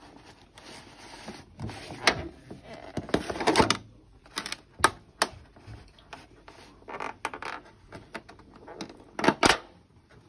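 Plastic takeout food trays being handled, their clear plastic lids giving irregular sharp clicks and brief crackles, loudest about nine seconds in.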